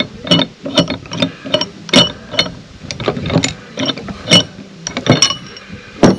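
Steel parts of a bearing separator set (puller jaws and threaded rods) clinking and knocking together as they are handled and fitted, an irregular run of sharp metallic clicks, two or three a second, with the loudest knocks near the end.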